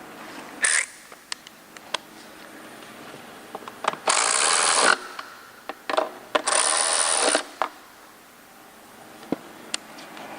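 A cordless power driver run in two steady bursts of about a second each, running down 10 mm bolts, with a shorter burst near the start and scattered clicks of tools and parts being handled.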